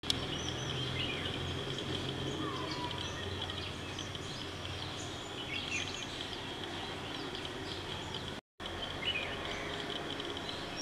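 Woodland ambience: a steady high-pitched buzz with scattered bird chirps and short whistles over a low background rumble. The sound drops out completely for a moment about eight seconds in.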